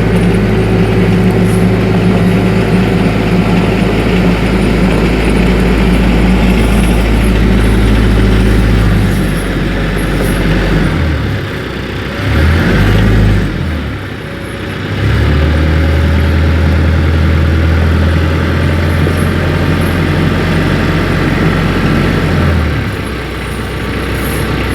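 TYM 474 compact diesel tractor engine running steadily as the tractor drives, the engine note dropping and shifting in pitch about halfway through, then holding steady again before easing off near the end.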